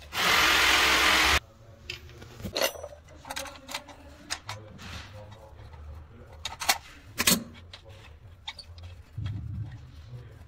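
A loud, even hiss-like burst of noise lasting about a second and a half at the start, then scattered sharp clicks and knocks of metal plumbing tools being handled and fitted against a pipe fitting.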